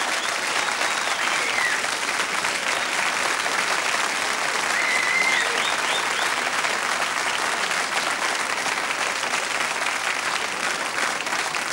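Studio audience applauding steadily, a dense clapping that holds through, with a few short high calls over it.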